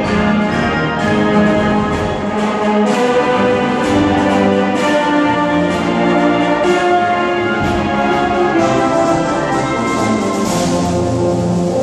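High school concert band (wind symphony) playing a piece: full ensemble of woodwinds and brass with tubas and string bass, brass to the fore, in loud sustained chords that move every second or so.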